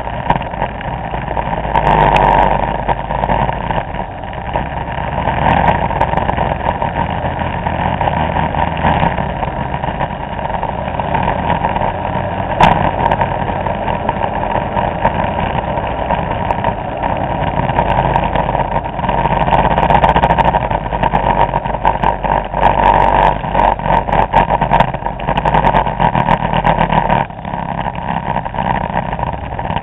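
Vespa scooter engines running as a group of scooters rides along at a steady pace, with wind and handling crackle on the camera microphone and one sharp knock near the middle.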